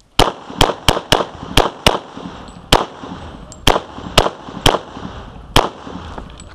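A string of about ten pistol shots fired in quick succession during a timed IDPA stage, mostly in pairs about a quarter to half a second apart, with pauses of about a second between pairs as the shooter moves between targets. Each shot is a sharp crack with a short ringing tail.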